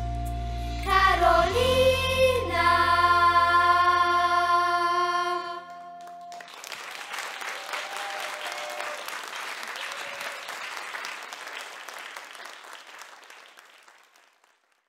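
Children's choir with backing music holding the last chord of a song, a sung note gliding through it, until it stops about five and a half seconds in. Audience applause follows and fades away near the end.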